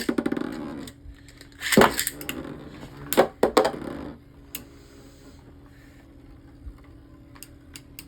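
Beyblade spinning tops launched with a loud rattling burst from the ripcord launcher at the start, then clacking against each other in the plastic stadium, with sharp clinks about two seconds in and a quick run of them around three and a half seconds. After that only faint ticks remain.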